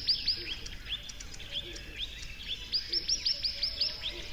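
Small birds chirping: quick runs of high, down-slurred notes, one run ending just after the start and another near the end, with scattered single chirps between.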